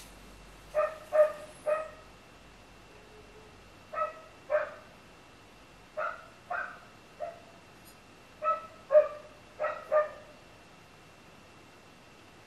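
A dog barking in short runs of two to four barks, about a dozen barks in all.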